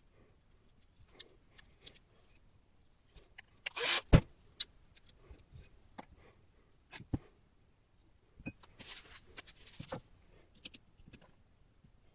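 Scattered clicks and knocks of jigsaw parts being handled and fitted together: metal gearbox housing and plastic pieces of a Parkside Performance jigsaw. A louder rustle ends in a sharp knock about four seconds in, another knock comes near seven seconds, and a stretch of rubbing and scraping follows around nine seconds.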